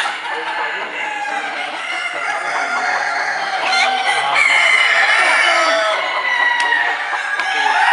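Many caged chickens: roosters crowing over steady clucking, with one long crow in the middle.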